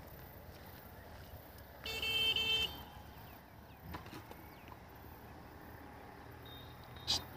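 A vehicle horn honks once, a steady pitched toot lasting under a second, about two seconds in. A short sharp click near the end.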